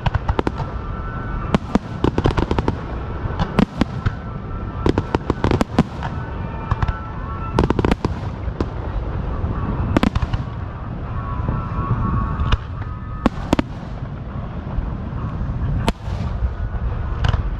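Fireworks going off: a dozen or more sharp bangs at irregular intervals, some in quick clusters, over a steady low rumble.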